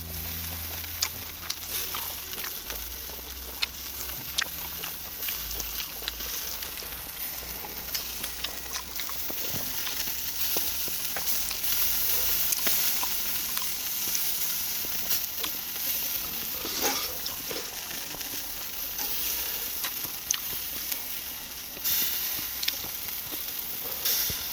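Duck meat sizzling on a charcoal grill: a steady hiss with scattered crackles and clicks.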